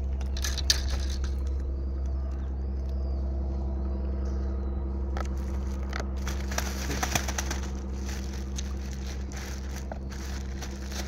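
Rustling, crackling and clicking of hands unhooking and handling a freshly caught horse mackerel beside a plastic bag of fish, with the sharpest crackles about a second in and again around six to seven seconds. A steady low hum runs underneath, and a few faint high bird chirps come a few seconds in.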